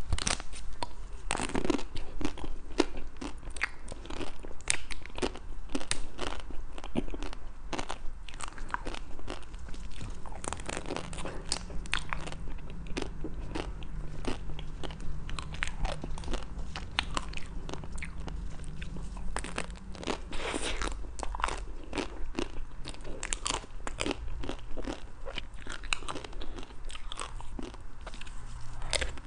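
Close-miked biting and chewing of a chocolate-coated Magnum ice cream bar: the hard chocolate shell cracks and crunches in many sharp snaps, with softer chewing between.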